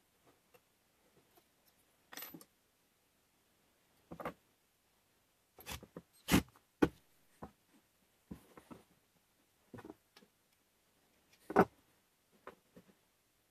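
Scattered clicks, clinks and knocks of small metal parts on a steel rod being handled and set down on a wooden bench. The loudest sharp knocks come a little after six seconds in and again near the end.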